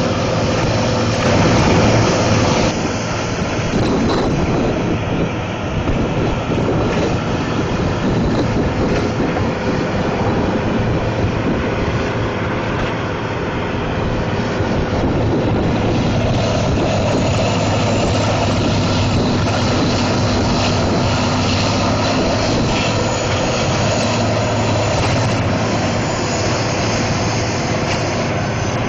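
2004 Morbark 5600 horizontal grinder running under load: its diesel engine drones steadily while the mill grinds wood. This makes a loud, dense, unbroken rumble with scattered knocks.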